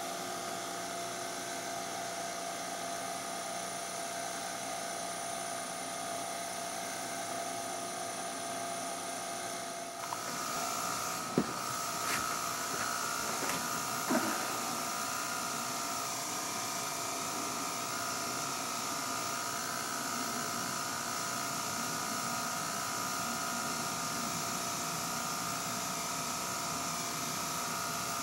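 Uncovered 1965 Sony CV-2000 reel-to-reel videotape recorder running in playback: a steady mechanical whine from its motor and spinning video head drum. The sound shifts about ten seconds in, followed by a few short clicks.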